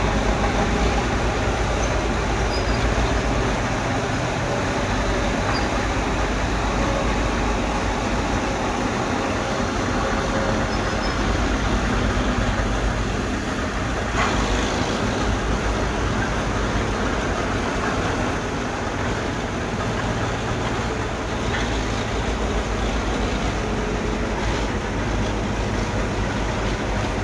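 Bulldozer's diesel engine running steadily under load, with a rumbling clatter and one sharp clank about fourteen seconds in.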